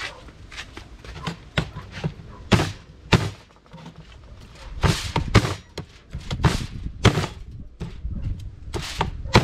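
Knife chopping jerk chicken on a cutting board: about ten sharp, irregularly spaced chops, some louder than others.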